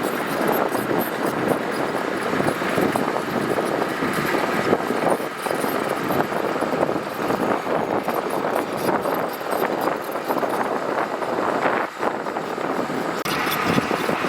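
Heavy earthmoving machinery running steadily, a continuous engine and working noise.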